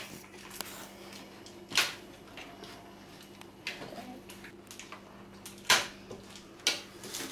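Quiet room tone broken by a handful of short, sharp knocks and taps, the clearest about two seconds in and twice near the end.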